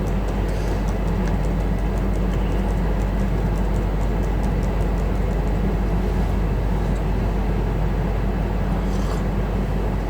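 Steady low background hum and rumble with no speech, with a run of faint, light ticks over roughly the first half.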